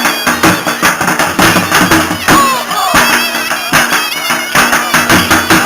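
Loud traditional folk music with a fast, steady drum beat, a wavering reedy melody line and a low held drone.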